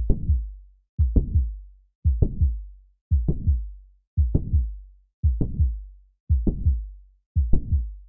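Mitral valve prolapse heart sounds heard at the cardiac apex, beating about once a second. Each beat is a low thump followed a moment later by a sharp click and a fading murmur: the mid-systolic click and late systolic murmur of a prolapsing mitral valve.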